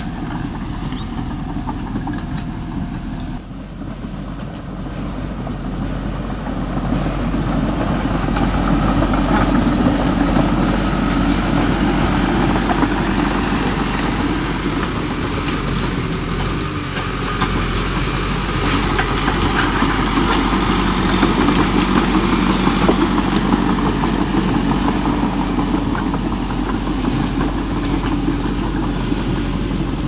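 A steady engine-like running sound that goes with the radio-controlled bulldozer and pickup. It dips briefly about three and a half seconds in and is louder from about seven seconds on.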